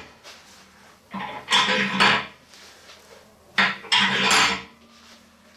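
Metal-on-metal clattering and scraping, in two strokes about a second long each, the first about a second in and the second a little past the middle.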